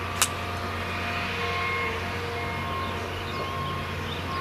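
A heavy engine running steadily with a low hum, and one sharp click about a quarter second in.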